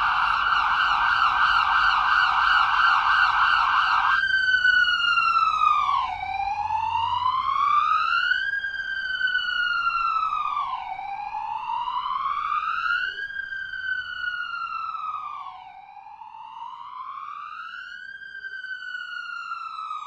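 Electronic ambulance siren: a fast warbling yelp that switches about four seconds in to a slow wail, rising and falling in pitch every four to five seconds, growing fainter over the last few seconds.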